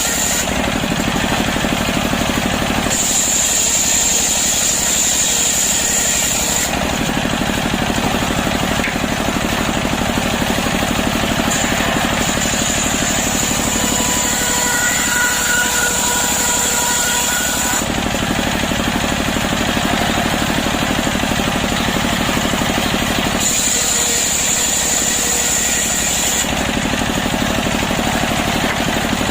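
Chainsaw engine running hard while ripping a log lengthwise, its pitch shifting in several stretches as the load on the cut changes.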